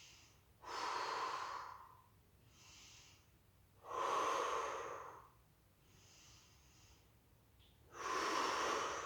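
A woman breathing deeply and audibly through the nose: three loud breaths about four seconds apart, with fainter breaths between them.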